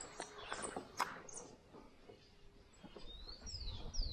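A bird calling: a run of about five short whistled notes, each sliding downward, starting about three seconds in. Before it come a few short sharp clicks, the loudest about a second in.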